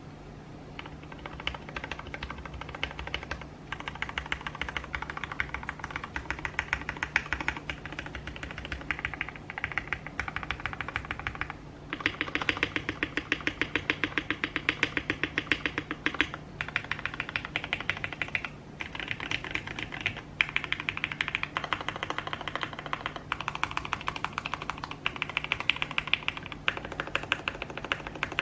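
Typing on a Tofu60 mechanical keyboard with an FR4 plate, lubed KS-3x47 switches and foam-dampened case, keys struck in fast runs with short pauses. About twelve seconds in, a stretch of deeper-sounding strokes lasts a few seconds.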